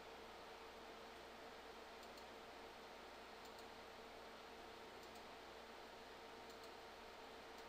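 Near silence: steady room hiss with a faint hum, and a few faint clicks spaced about a second and a half apart.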